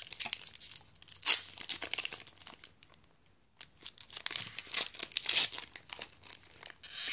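Foil Yu-Gi-Oh booster pack wrapper crinkling and tearing as it is pulled open by hand, in quick crackles with a brief pause a little before halfway.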